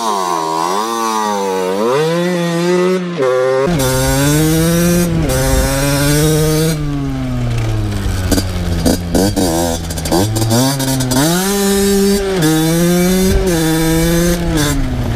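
Two-stroke motocross bike engine revving up and down over and over, its pitch repeatedly rising and falling under the throttle. A low rumble joins about four seconds in.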